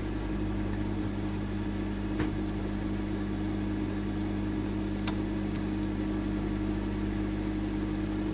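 A steady electronic drone of a few held low tones over a hiss, with faint ticks about two and five seconds in; it stops abruptly at the end.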